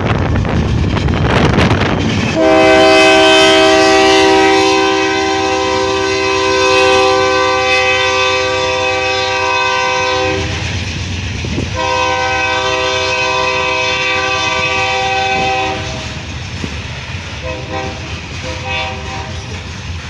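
GE AC4400CW freight locomotive's air horn sounding two long blasts, several notes held at once in a chord. The first lasts about eight seconds and the second about four, after a short gap. The passing locomotives rumble before the horn, and near the end the freight cars roll by, quieter, with a clickety-clack.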